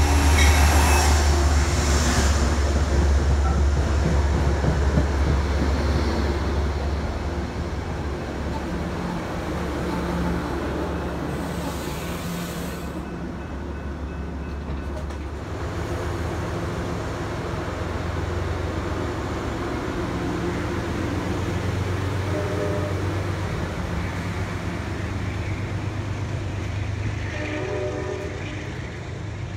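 Metro-North GE P32AC-DM diesel locomotive running close by at low speed, its engine loudest over the first few seconds, then the passenger coaches rolling past with a steady low rumble and light wheel-on-rail noise.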